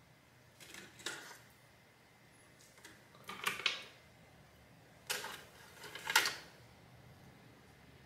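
Quiet, irregular rummaging: about five short rustles and clatters of small parts and packaging being moved about while searching for a spare RAM stick, the loudest a little past the middle and about six seconds in.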